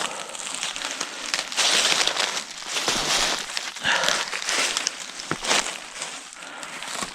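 Footsteps crunching and rustling through dry leaves and brush on the forest floor, uneven and irregular, with a few short sharp snaps along the way.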